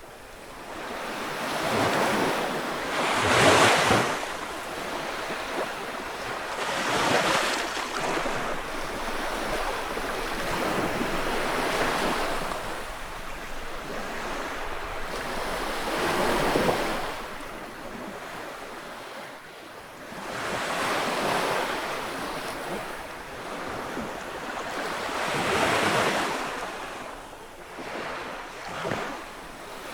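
Waves breaking and washing up a beach, each surge swelling and fading every few seconds, the strongest a few seconds in.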